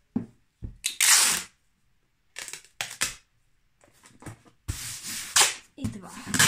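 Packing tape ripped off the roll in several short rips, the loudest about a second in, and pressed down by hand onto a cardboard box.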